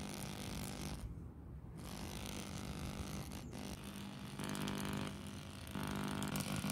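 A homemade transistor power tester buzzing through its small speaker with a steady low hum. It swells louder twice in the second half.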